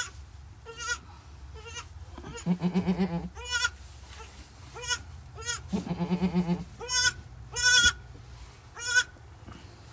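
Goats bleating during kidding: a run of short, high, arched bleats about once a second, and twice a longer, lower, pulsing call, about two and a half and six seconds in. The doe is in labour, pushing out her second kid.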